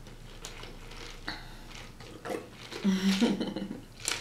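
A drink sipped through a plastic straw from a cup with ice, with small slurping and clicking sounds, then a brief voiced 'mm' sound about three seconds in.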